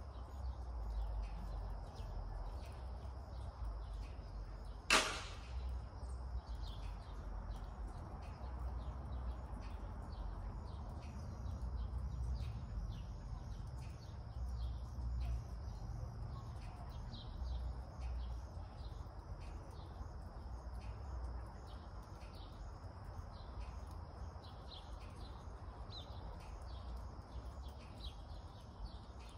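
Small birds chirping in short, repeated calls over a low rumble of background noise, with one sharp crack about five seconds in.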